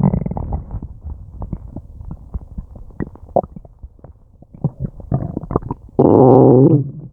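Human stomach and intestines gurgling, with many short bubbling pops and clicks, then a loud low growl lasting most of a second near the end. This is the gut working hard to digest a meal.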